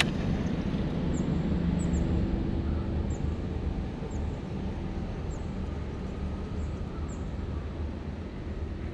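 A steady low rumble with a faint engine-like hum, like a vehicle motor running at a distance. Short, faint, high chirps come about once a second over it.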